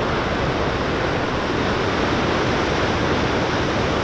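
Heavy ocean surf breaking and washing over a rocky shoreline: a steady, continuous roar of waves with no distinct single crashes.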